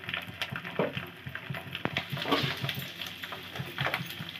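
Whole spices and freshly added green chillies sizzling in hot mustard oil in a small pan, with irregular crackling and popping as a tempering (chhaunk) fries.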